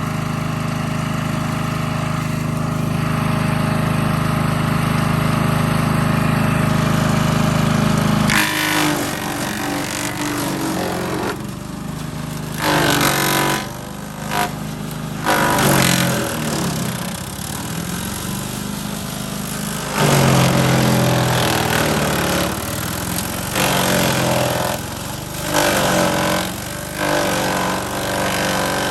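DR Premier 300 self-feeding wood chipper running smoothly on its new Briggs & Stratton engine; from about eight seconds in, wood is fed through it, giving repeated loud bursts of chipping with the engine speed dipping under each load.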